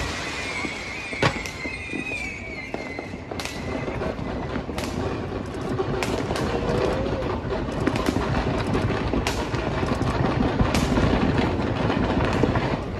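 Fireworks going off: a sharp bang about a second in, then scattered loud cracks over a steady crackle and rumble that grows louder in the second half. A wavering whistle sounds in the first few seconds.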